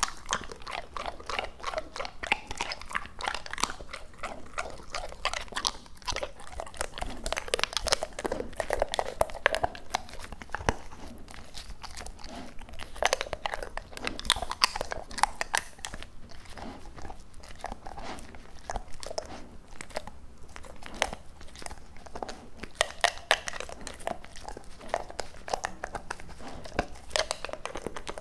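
Labrador retriever chewing raw duck close to the microphone: a dense, irregular run of wet crunches and clicks as it bites and works the meat in its jaws.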